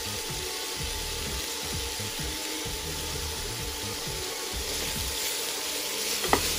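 Tongs scraping shredded cabbage off a plate into a pan, with a steady frying sizzle underneath. A sharp click of the tongs sounds near the end as the stirring begins.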